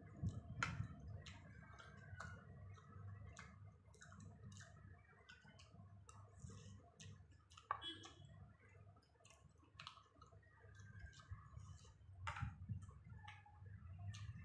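A person eating misal pav with a metal spoon from a plastic bowl: quiet, irregular clicks and smacks of chewing and lips, with light taps of the spoon against the bowl.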